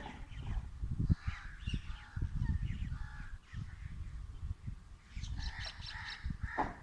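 Crows cawing several times over a low, irregular rumble.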